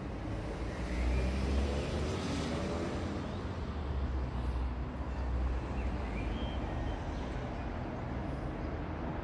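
Road traffic: a motor vehicle's engine passing close by, loudest about one to three seconds in, over a steady low rumble of traffic.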